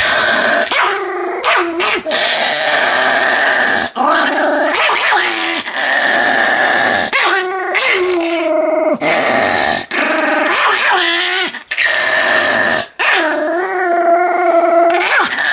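Pomeranian vocalising loudly in a run of long, wavering, whining calls, each a second or two long, with brief breaks between them.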